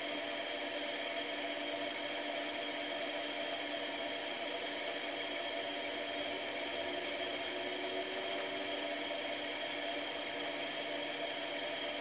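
A steady, unchanging hum and whir made of a few constant tones over a faint hiss, with no pen strokes standing out.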